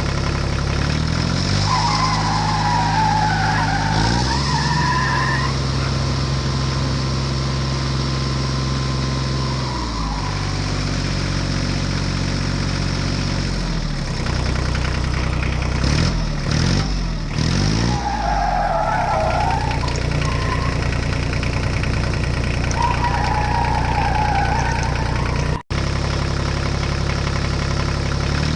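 Heavy vehicle engine sound, running and revving up and down in steps, with short wavering whines over it several times. It cuts out for an instant near the end, as at an edit.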